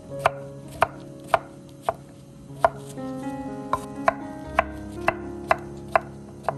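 Chef's knife slicing button mushrooms on a wooden cutting board: about a dozen sharp knocks of the blade on the board, roughly two a second, unevenly spaced.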